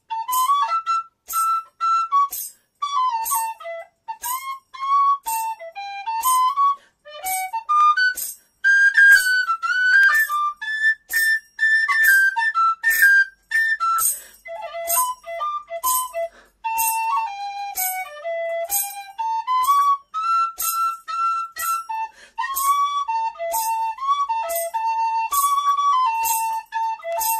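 D tin whistle playing a slow blues in A major, a melody of short phrases with bends and ornaments in the whistle's low and middle register. A jingle keeps a steady beat underneath.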